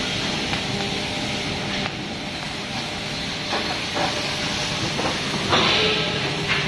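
Oxy-fuel cutting torch hissing steadily as its flame cuts through steel plate, growing louder for about a second near the end.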